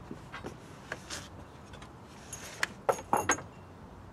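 Light clicks and metallic clinks of hands working at a wooden whirligig's metal drive shaft and rod fittings to take the shaft out. A few scattered clicks come first, then a quick cluster of louder, sharper clicks about three seconds in.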